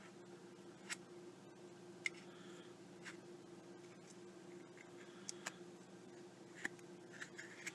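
Faint, scattered small clicks and taps of a Zippo lighter's metal insert and new wick being handled, about eight in all, over a low steady hum.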